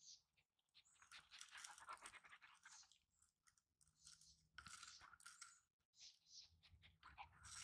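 A Great Dane nosing through dry pine needles and grass: faint, irregular rustling and crunching in a few short bursts.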